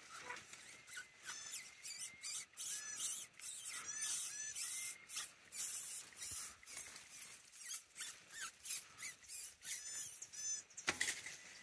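Many short, high-pitched squeaky animal calls, several a second, with a brief louder rustle near the end.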